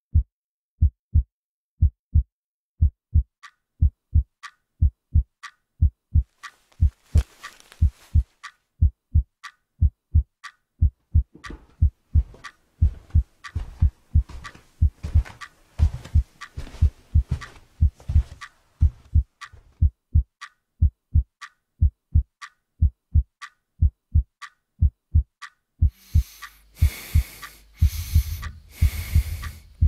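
Heartbeat sound effect: paired low thumps repeating steadily, with a clock ticking over it from a few seconds in. Near the end a loud pulsing noise swells in on top.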